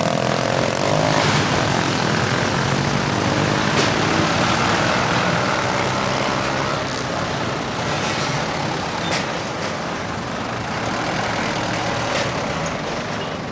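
Road traffic moving off close by: a line of motorcycles and trucks accelerating and driving past, a continuous mix of engines.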